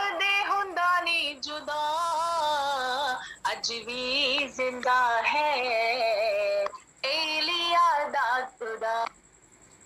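A woman singing long, wavering held notes, heard through a video call's audio; the singing stops about nine seconds in.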